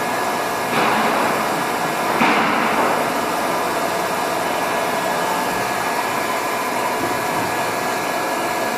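Mori Seiki MV-653/50 CNC vertical machining center running on a rapid-traverse test: a steady machine whir with several fixed tones, with two louder rushes of noise, just under a second and just over two seconds in, as the axes move at rapid speed. A faint rising whine comes in about six seconds in.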